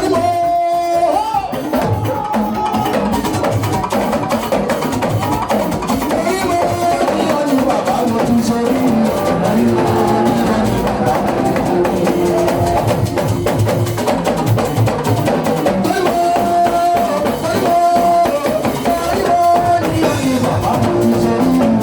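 Live church music with drums and other percussion keeping a steady beat under held pitched tones, played loud throughout.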